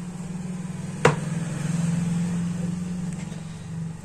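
A steady low hum with a fine flutter, with one sharp click about a second in.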